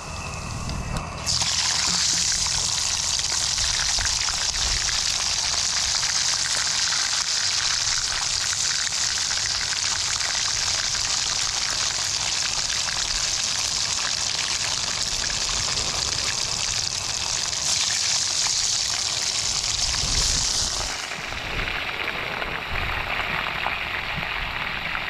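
Hot oil sizzling steadily as fish fries, starting abruptly about a second in and easing somewhat near the end.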